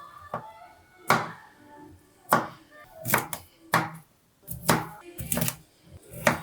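A knife chopping food on a cutting board: a series of sharp, irregularly spaced chops, some in quick pairs, over quiet background music.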